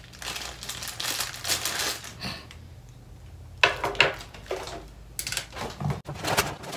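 Small plastic zip-lock bag crinkling and rustling as it is pulled open and a part is taken out, then sharp crackles and clicks of plastic being handled, first about three and a half seconds in and again later.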